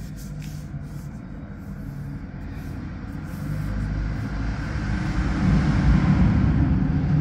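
Hair dryer blowing hot air onto adhesive vinyl film on a skirting board, heating the film so it sets onto the board: a steady rush of air over a low motor hum, growing louder from about halfway through.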